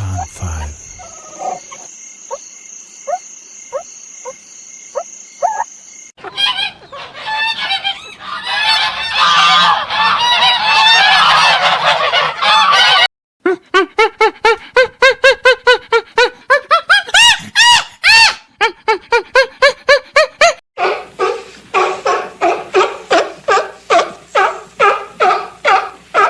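Animal calls in a string of short clips, switching abruptly several times. First come sparse short calls. Then a dense chorus of many calls at once, then rapid repeated calls, and finally an even run of calls at about three a second.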